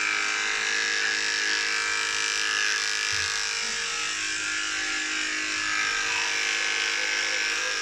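Electric dog grooming clippers running with a steady buzz as they shave through a dog's matted coat.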